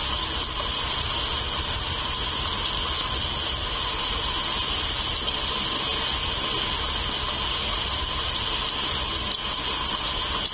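Steady, continuous high-pitched insect chorus, like crickets, droning without a break over a low rumble of wind noise on the microphone.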